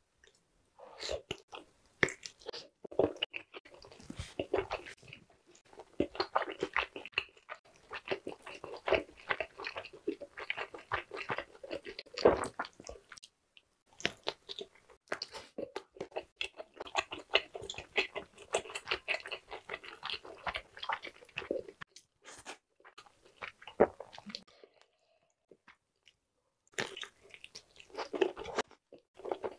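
A person biting and chewing a whole Korean blood sausage (tongsundae) coated in spicy stir-fry sauce: runs of wet mouth clicks and chewing with a few brief pauses.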